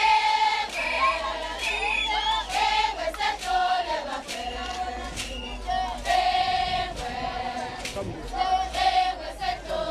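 A group of voices singing together in Zulu, holding long notes, with frequent sharp hits sounding through the singing.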